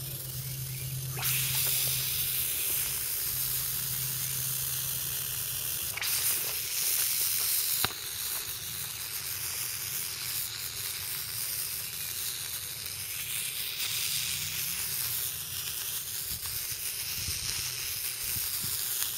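A lump of sodium metal skating on water and fizzing with a steady hiss as it reacts and gives off hydrogen, with a single sharp pop about eight seconds in.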